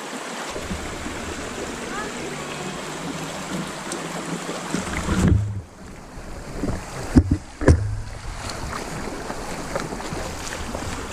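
Creek water running, with wind rumbling on the microphone; two sharp knocks come about seven seconds in.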